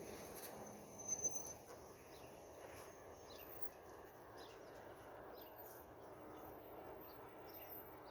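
Quiet outdoor background with a few short, high-pitched chirps; one louder chirp comes about a second in.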